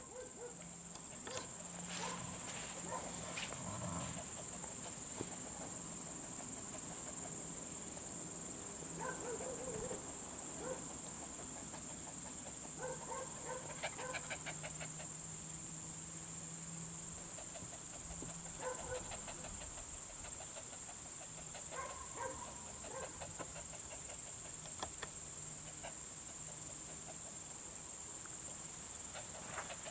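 Crickets chirping on a summer night, a steady high-pitched trill, with short bursts of rapid lower calls from another animal every few seconds.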